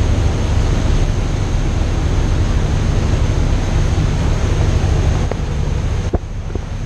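A boat under way at sea: a steady low rumble with a rushing hiss of wind and water. About six seconds in, the hiss thins out and there is a sharp click.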